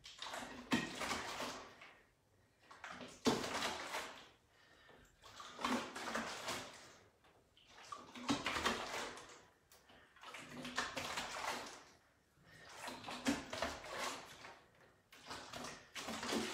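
Liquid sloshing inside a large plastic container being curled up and down as a hand weight, in a swell about every two and a half seconds, one with each repetition.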